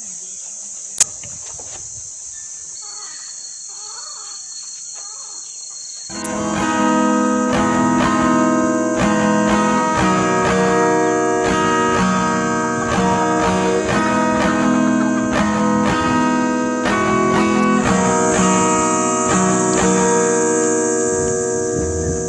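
Background acoustic guitar music comes in about six seconds in and carries on. Before it there is a steady high chirring of insects with one sharp click about a second in.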